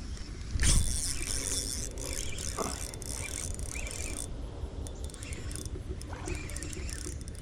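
Fishing reel and line during a cast and retrieve: a hiss of line starting suddenly about half a second in, then the reel being cranked, with wind rumbling on the microphone.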